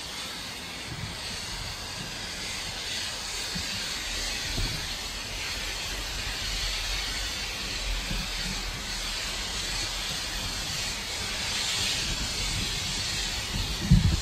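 Ground fountain firework burning with a steady spraying hiss. It ends with a couple of sharp pops near the end.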